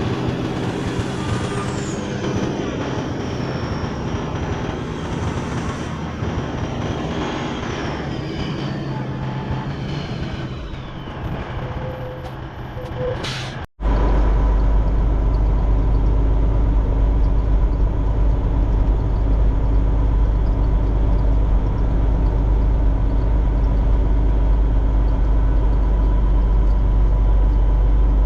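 Loaded semi truck's engine running on the road, with a high whine that slowly falls in pitch. About halfway through there is a sudden cut, then a steadier, louder, deep engine drone.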